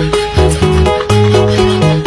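Background music led by a plucked guitar over a bass line that changes note about every half second.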